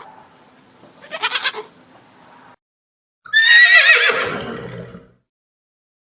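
A goat bleats once. After a short pause a different animal gives a longer call that starts high and slides down in pitch.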